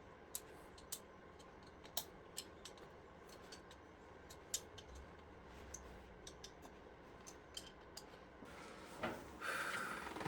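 Faint, scattered sharp metallic clicks and taps of hand tools and small parts being handled on an engine. A louder scraping rustle comes near the end.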